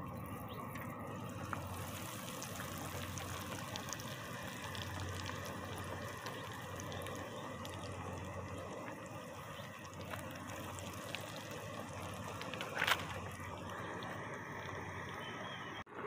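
Breaded pork schnitzel sizzling and crackling as it shallow-fries in hot oil in a pan. A single short knock about thirteen seconds in.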